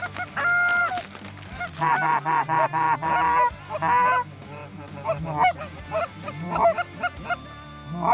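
Canada goose honks and clucks: a long honk, then a fast run of short clucking calls, then scattered single honks as a flock is called in.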